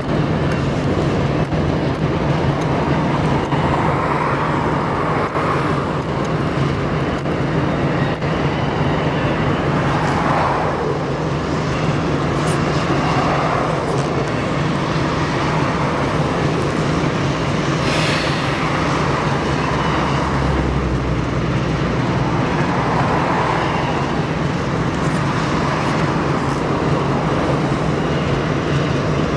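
Freight train rolling past: a steady rumble with a low hum throughout and a swell of wheel noise every two to three seconds.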